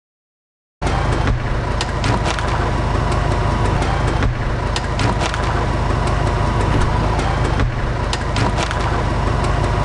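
Heavy engine machinery running steadily, with repeated sharp cracks and knocks over it, starting abruptly about a second in.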